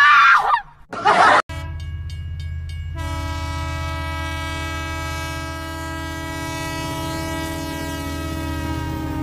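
A cartoon 'boing' sound effect in the first half second. About a second and a half in, the low pulsing hum of an approaching Indian electric locomotive sets in. About three seconds in, the locomotive's horn starts one long, steady blast of several notes at once.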